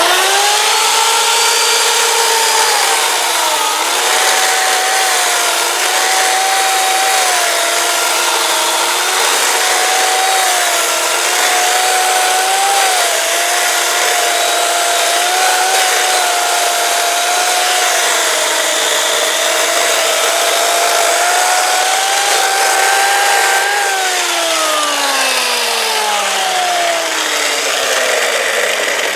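Chainsaw with a freshly sharpened chain cutting wood: it starts abruptly at full speed, and its whine sags and wobbles as the chain bites. About 24 seconds in it is let off, and the pitch falls steadily as it winds down.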